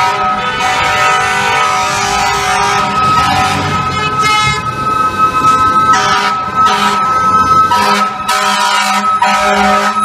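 Fire truck air horns blaring in long, steady blasts that break off and restart several times in the second half, over city traffic noise.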